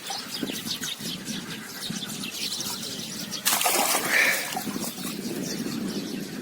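Water splashing and trickling in short, crackly bursts, with one louder splash about three and a half seconds in.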